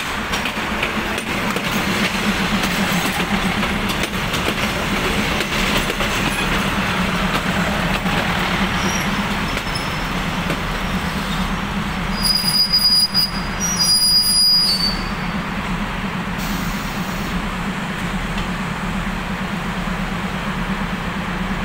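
SRT diesel railcar train pulling into a halt and braking to a stop: the underfloor diesel engines hum steadily under the noise of the wheels on the rails. High brake squeals come for a few seconds around the middle. After that the railcar stands with its engines idling.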